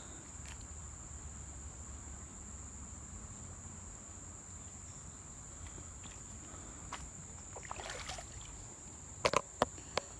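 Insects chirring in one steady, high continuous tone, with several sharp clicks about nine seconds in.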